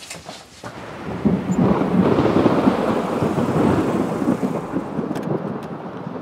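A loud, rolling rumble with a crackling edge, swelling about a second in and holding steady.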